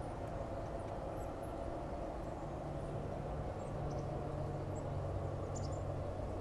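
A steady low hum, with a second low tone joining about two and a half seconds in, under a few faint, high bird chirps.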